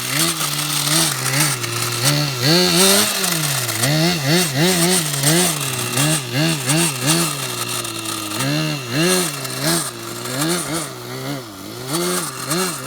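Blizzard 1:12 RC model's motor revving up and down in quick repeated surges as the throttle is worked, settling to a steadier pitch for a moment about seven seconds in and again near ten seconds.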